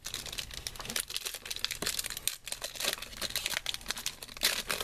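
Foil wrapper of a trading card pack crinkling and crackling in the hands as it is opened and crumpled, with a louder burst of crinkles near the end.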